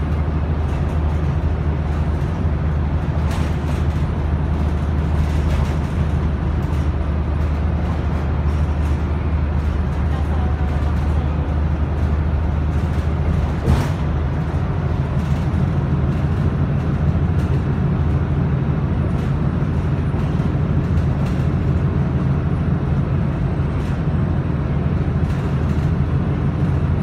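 Inside a moving city bus: a steady low engine drone with road noise and light rattles. The engine's note changes about halfway through, at the moment of a single sharp knock.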